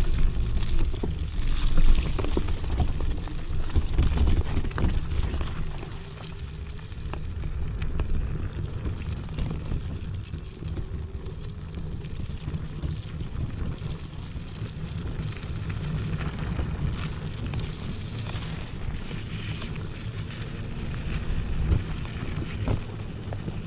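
Wind buffeting the microphone over the rumble and knocks of an electric scooter's tyres on a rough, wet off-road track. It is louder for the first few seconds, then settles to a steadier, quieter rumble.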